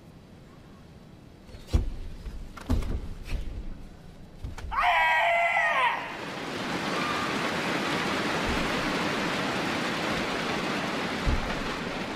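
Karate kata on a tatami: sharp snaps of the gi and stamps of bare feet on the mat in the first few seconds, then a loud drawn-out shout about five seconds in, followed by steady crowd noise.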